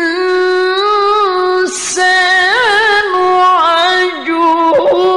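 A male qari reciting the Quran in melodic tilawah style. He holds long, high notes with ornamented, wavering turns, broken by a hissing consonant about two seconds in.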